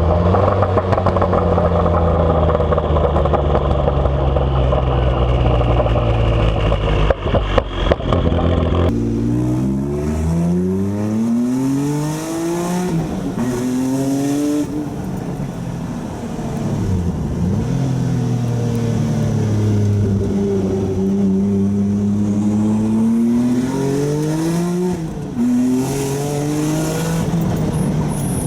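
Jaguar XJ220's twin-turbo V6 engine heard from on board. It holds a steady heavy drone with a few sharp cracks about seven seconds in. After a sudden change about nine seconds in, it revs up and drops back several times, with repeated accelerations and gear changes.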